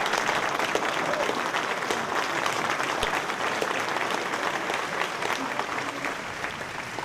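Audience applauding, a steady round of clapping that eases off near the end.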